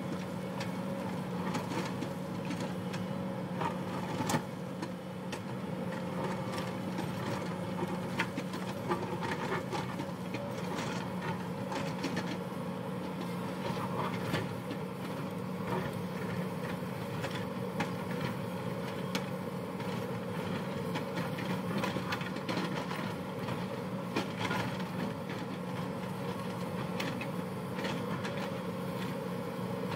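Hyundai 220LC crawler excavator's diesel engine running steadily under load as its bucket digs into a rocky earth bank, with frequent sharp knocks and clatter of rock and soil throughout.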